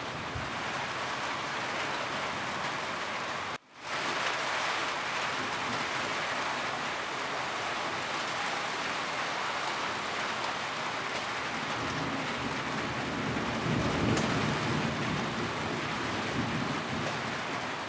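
Steady rain falling on a roof, an even hiss of drops. The sound cuts out for an instant about four seconds in, and a low rumble swells in the second half.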